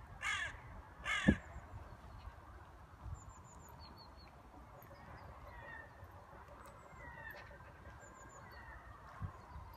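A crow cawing twice in the first second and a half, followed at once by a single sharp thump. After that, only faint high chirps over a low background rumble.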